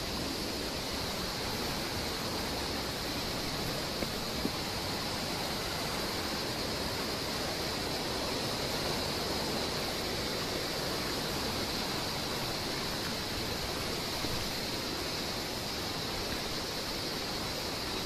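Steady, even rushing of falling water from a waterfall or stream, with no change in strength throughout.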